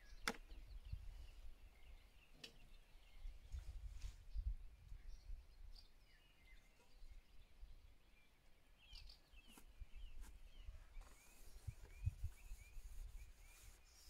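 Faint outdoor quiet with small birds chirping in the distance, mostly in the second half, a few light clicks and knocks, and a low rumble of wind on the microphone.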